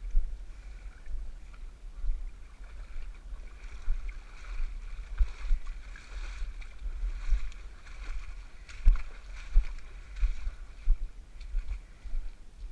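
Splashing and sloshing of water from swimming strokes, heard right at the water surface, with irregular low thumps and splashes about once a second that come more often in the second half.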